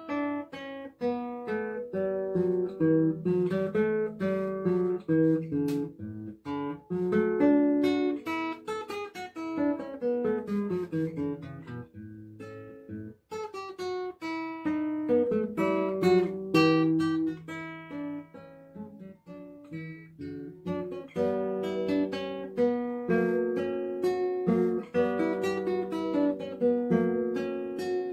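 Solo nylon-string classical guitar, fingerpicked: a melody of plucked notes over bass notes, with a brief break about halfway through.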